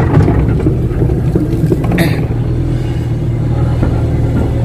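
Kato crawler excavator's diesel engine running steadily, with a short higher-pitched sound about two seconds in.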